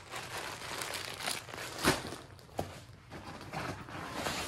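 Crinkly rustling of ultralight stuff sacks and a food bag being handled and pulled out of a backpack, irregular, with a sharper, louder rustle about two seconds in.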